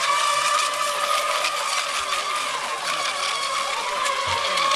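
Several electric radio-controlled racing boats running flat out, their motors and propellers giving a steady high whine made of several tones that drift up and down in pitch as the boats turn, over a steady hiss.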